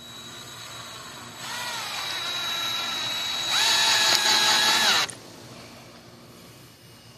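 Electric drill boring a hole through wood. The motor spins up about one and a half seconds in and runs steadily, spins up again louder about three and a half seconds in, then stops suddenly about five seconds in.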